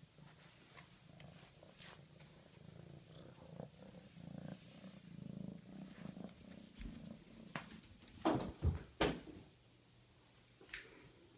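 Kitten purring steadily, fading out after about seven seconds, followed by three sharp, loud knocks in quick succession.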